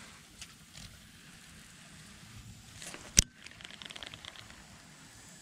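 Baitcasting reel being worked on a retrieve: one sharp click about three seconds in, then a quick run of soft ticks as the handle is turned.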